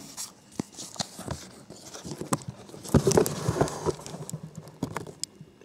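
Scattered light clicks, taps and rustling from a handheld camera being moved about and handled, with a denser burst of them about three seconds in.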